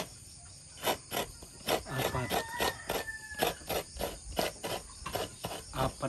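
Coconut meat being grated by hand: rhythmic rasping scrapes, about three strokes a second, starting about a second in.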